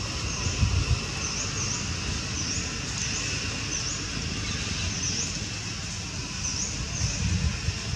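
Outdoor ambience of repeated short high chirping calls, often in pairs, over a steady hiss, with low rumbling surges about half a second in and again near the end.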